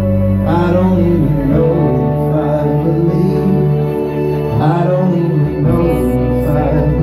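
Live band playing a slow song through the venue's sound system: sustained low chords with guitar and a voice-like melody over them, heard from within the audience.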